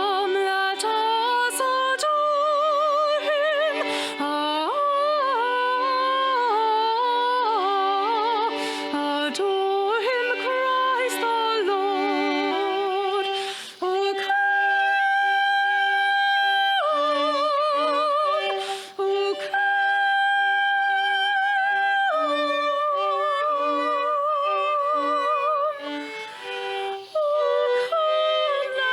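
Live worship music: a singer holds long notes with vibrato over a sustained instrumental accompaniment, with a few brief breaths or pauses between phrases.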